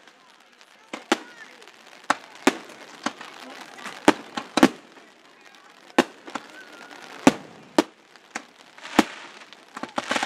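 Aerial fireworks shells bursting in sharp bangs at irregular intervals, more than a dozen of them, some in quick pairs.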